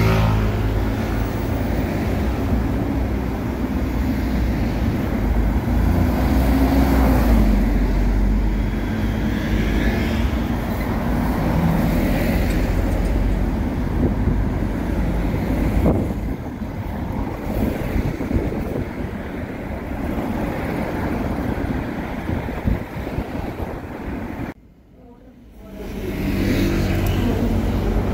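Buses and street traffic passing a roadside bus stop: steady engine and tyre rumble, with an engine's pitch rising and falling about six seconds in. The sound drops out briefly near the end, then the traffic noise returns.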